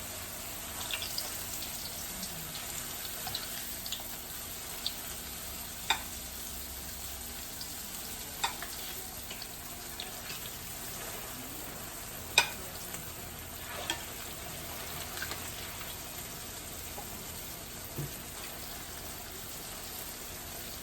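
Turon, banana and jackfruit rolls, frying in hot oil over a medium fire: a steady sizzling hiss with a few sharp pops, the loudest about halfway through.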